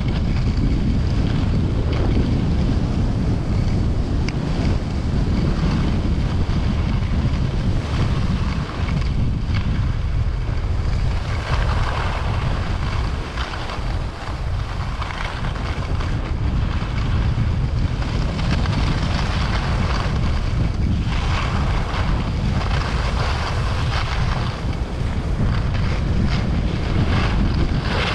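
Heavy wind rushing over the microphone while skiing downhill, with a hiss of skis on snow swelling and fading several times.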